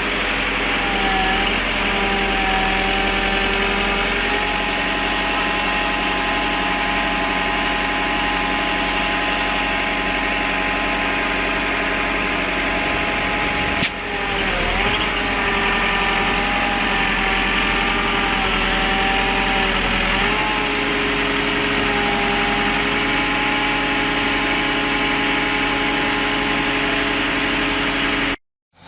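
Excavator engine running steadily, its pitch dipping briefly a few times as if under load. There is a sharp click about halfway through, and the sound cuts off suddenly just before the end.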